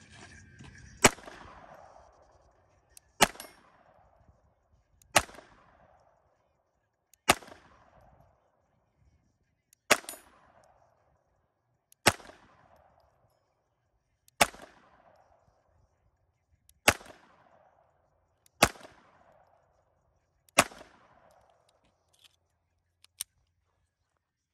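Semi-automatic pistol fired slowly, ten single shots about two seconds apart, each shot followed by a short ringing tail.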